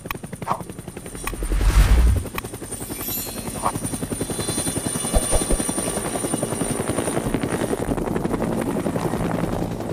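Helicopter rotor blades chopping in a fast, steady rhythm, with a thin high steady whine over it. A couple of short clicks come in the first second, and a brief low rumble swells up about a second and a half in, the loudest moment.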